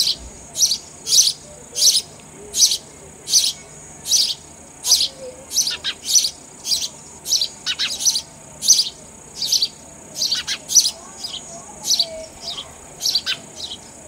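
House sparrows chirping: a steady run of short, high chirps, about one and a half a second.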